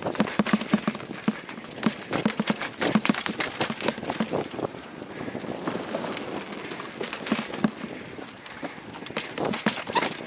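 Mountain bike clattering downhill over a rough forest trail: rapid irregular knocks and rattles from tyres hitting roots and rocks and the bike's chain and frame, heard from a helmet-mounted camera. The clatter eases off in the middle and picks up again near the end.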